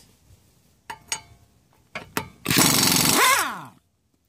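Air Nesco NP 742 half-inch pneumatic impact wrench triggered in reverse. A few sharp clicks come first, then a loud burst of about a second, and the motor winds down with a falling whine.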